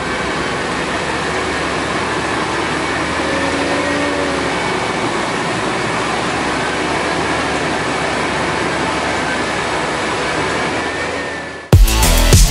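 Dewulf ZKIIS carrot harvester and a methane-powered New Holland T6.180 tractor working side by side: a steady running drone of engines and harvester machinery with faint whining tones. Electronic music with a beat cuts in abruptly near the end.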